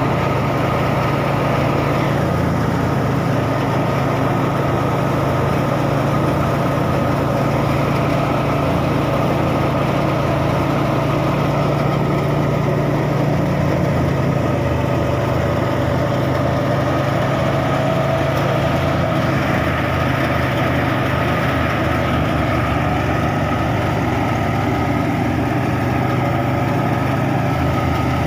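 Massey Ferguson 260 tractor's three-cylinder diesel engine running steadily under load, belt-driving a wheat thresher whose drum whirs as wheat straw is fed in. A loud, even drone with no breaks.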